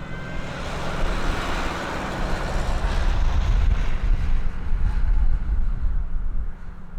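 Aircraft engine noise, a rushing sound that swells about a second in, over a deep rumble of wind on the microphone that is strongest midway through.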